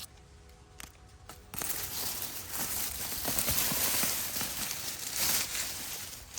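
Sweet potato vines and leaves rustling and crackling as they are pulled up out of the soil, starting about a second and a half in after a couple of faint clicks.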